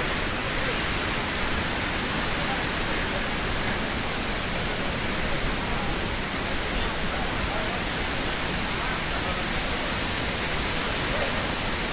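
Steady rush of falling water and spray from the Dudhsagar waterfall, an even hiss with no breaks.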